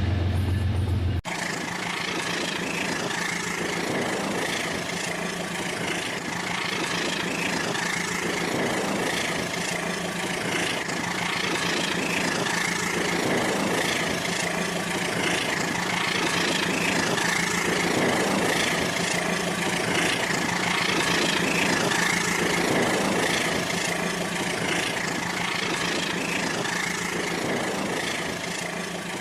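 Battery-powered Rail King toy train running on its track: a steady motor whir with a constant hum.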